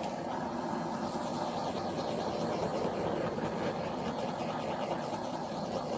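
Handheld torch flame blowing with a steady rushing hiss, passed over wet acrylic pour paint to pop air bubbles and bring up cells.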